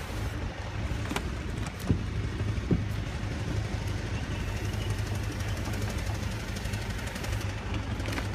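A steady low rumble with a few light clicks in the first three seconds.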